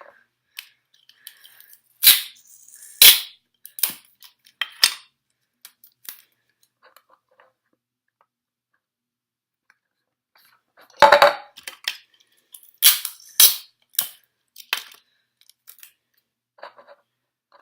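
Tape being pulled and torn: a handful of sharp snaps, a pause of several seconds, then a longer rip about eleven seconds in, followed by more snaps.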